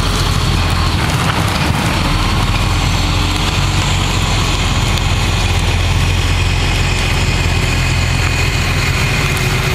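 Fire engine running steadily while pumping water to the hoses: a continuous low engine hum under a steady rushing hiss.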